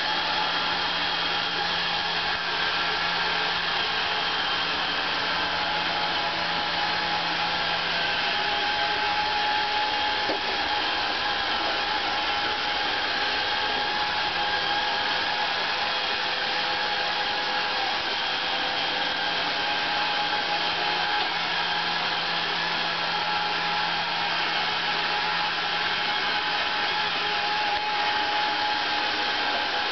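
Roomba robot vacuum running with a steady whir and a low hum that fades and returns.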